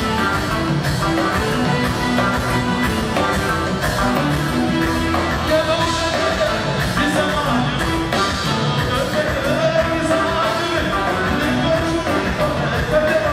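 Live band of electric guitars, drum kit and keyboards playing an upbeat Ethiopian pop song, with a male singer's long held lines over it a few times.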